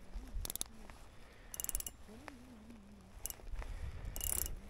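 Small spinning reel on an ice-fishing rod giving about four short clicking rasps while it is handled over the ice hole, with a faint low wavering hum underneath.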